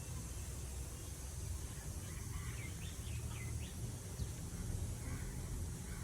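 Outdoor ambience: a steady low rumble with a few quick bird chirps about two to three and a half seconds in, and another faint call near the end.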